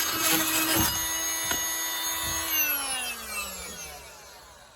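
Oscillating multi-tool running and cutting into plywood siding, then switched off about two and a half seconds in, its whine falling in pitch and fading as it winds down.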